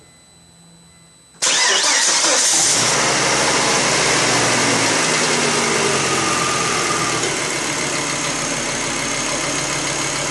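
Volvo S70 2.4T turbocharged five-cylinder engine starting for the first time after a cylinder head replacement: it catches suddenly about a second and a half in, flares briefly, then settles into a steady idle.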